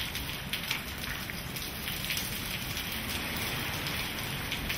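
Heavy hurricane rain pouring down onto wet pavement in a steady hiss, with gusts of wind rumbling low on the microphone.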